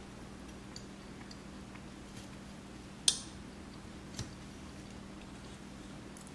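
A metal spoon clinking against a stainless-steel plate as cubes of gor papri are prised out: a few faint ticks, one sharp clink about three seconds in and a lighter one a second later.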